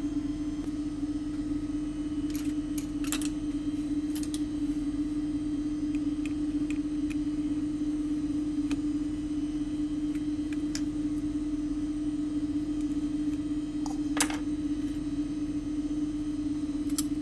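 A steady low hum at one constant pitch, with a few scattered light clicks and taps from handling small parts and tools on a circuit board.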